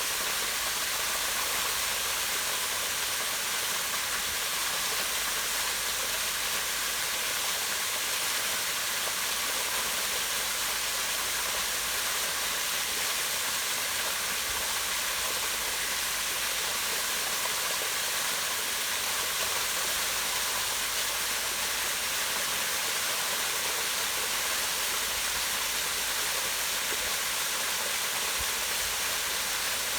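Waterfall pouring down a rock face into a pond: a steady, even rush of water.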